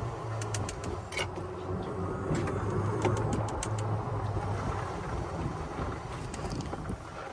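Kandi 6-passenger golf cart driving along pavement: a steady low hum with a haze of road noise. Scattered light clicks and rattles come from a loose windshield that needs its bottom screws adjusted.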